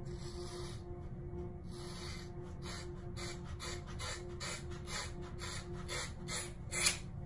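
Scissors snipping through a hank of hair: a run of short, crunchy cuts, two or three a second, getting louder, with the loudest near the end.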